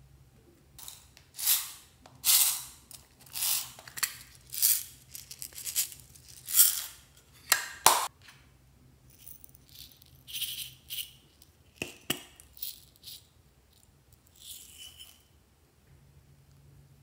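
Small plastic beads shaken out of a container and rattling onto slime in a glass dish. The rattling comes in a string of short bursts that grow fainter after about eight seconds.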